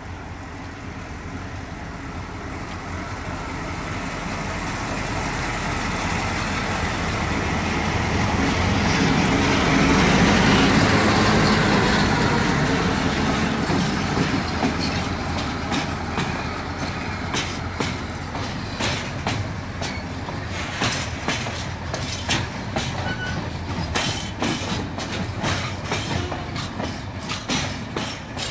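TCDD DE 22000-class diesel-electric locomotive running under load as it approaches and passes close by, growing louder to a peak about a third of the way in. The flat wagons behind it then roll past, their wheels knocking in a steady clickety-clack over the rail joints.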